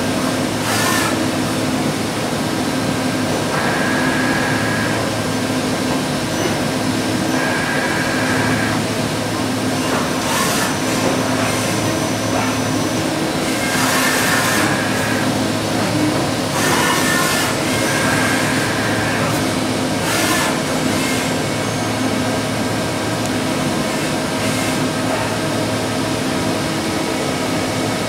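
FANUC RoboDrill Q-T10C vertical machining center running a machining cycle behind its closed door: a steady mechanical hum with several held tones. Several short bursts of hissing noise and a higher tone that comes and goes briefly break in at intervals.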